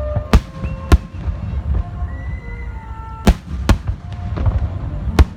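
Fireworks display: five sharp aerial shell bursts, two within the first second, two a little past the middle and one near the end, over a continuous low rumble of further bursts.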